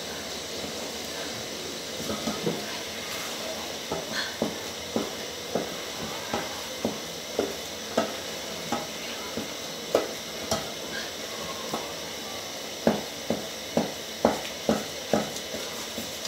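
Wooden cooking stick stirring and pressing stiff millet ugali in an aluminium pot, knocking against the pot about once or twice a second. The knocks come quicker and louder near the end, over a steady hiss.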